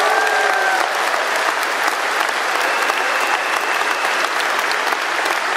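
Large crowd applauding loudly.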